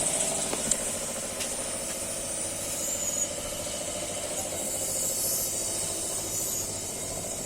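Ambulance engine idling steadily, with a couple of light clicks in the first two seconds.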